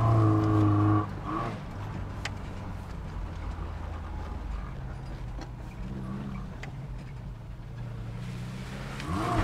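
Car engine heard from inside the cabin while driving on a rough dirt track. It pulls loudly for about the first second, then eases off to a lower steady running and picks up again near the end, with a few light knocks. The driver reckons the engine needs a tune-up.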